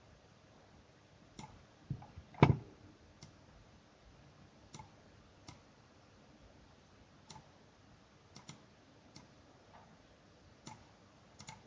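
Scattered computer mouse clicks, a dozen or so spaced irregularly, with one louder thump about two and a half seconds in.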